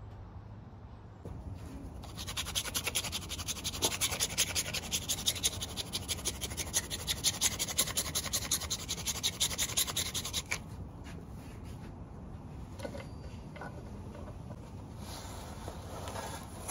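Parmesan being grated on a handheld metal grater onto a wooden pizza peel: rapid, even rasping strokes that go on for about eight seconds and then stop abruptly.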